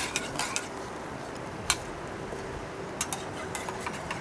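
A spoon stirring coffee in a metal cup, clinking now and then: a few light clicks, with one sharper clink a little under two seconds in and a few more near the three-second mark, over a steady background hiss.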